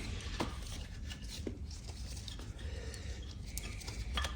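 Faint scattered clicks and rubbing as a new toothed cam belt is worked by hand onto the pulleys of a Ducati S2R 1000 engine, over a steady low hum. The new belt is tight and reluctant to go on.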